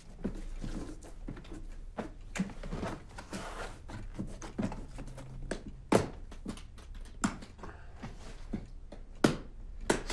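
A suitcase being packed on a bed: clothes rustling and irregular knocks. Its lid is shut with a sharp knock about six seconds in, and its latches are snapped closed with sharp clicks near the end.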